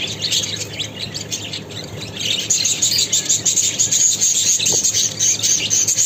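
A flock of budgerigars chattering and chirping continuously, many birds at once, getting busier from about two and a half seconds in.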